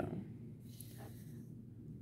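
Low steady room hum with faint desk-handling noises: a brief soft rustle and a light tap as a ballpoint pen is moved beside the notepad.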